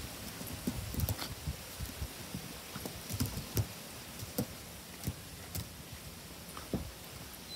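Two dogs play-fighting: irregular soft taps, scuffs and thumps of paws and bodies scrambling on grass and a rubber mat.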